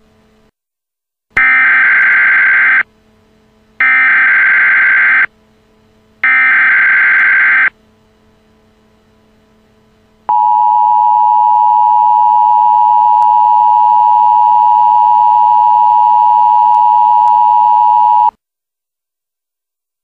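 Emergency Alert System signal: three bursts of the SAME digital header, each a harsh data warble of about a second and a half with roughly a second between them. Then, after a short pause, the two-tone attention signal is held steady for about eight seconds and cuts off sharply.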